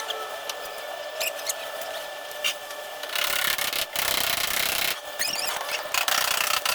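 Intermittent rubbing and scraping, a few stretches of about a second each, with scattered light clicks.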